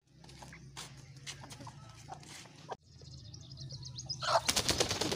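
A hen held by its wings flapping and struggling in a rapid flurry of wingbeats near the end, over a low steady hum.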